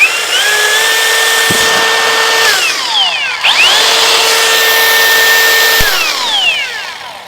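Cordless mixer's electric motor run twice: each time its whine rises as it starts, holds steady, then falls away as it spins down.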